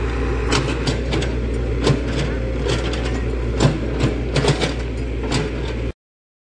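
Komatsu PC71 mini excavator's diesel engine running steadily while the bucket digs through soil and stones, with scattered sharp clanks and knocks. The sound cuts off abruptly near the end.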